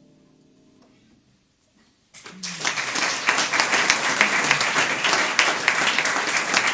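The final chord of a small jazz combo fades out to near quiet, then about two seconds in a small audience breaks into applause that carries on.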